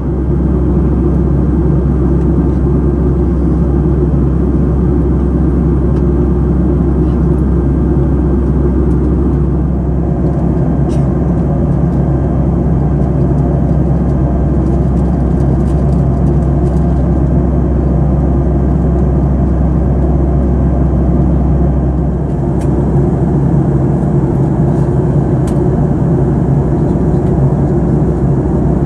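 Steady, loud rumble inside the cabin of a Boeing 737-800, its CFM56-7B engines running.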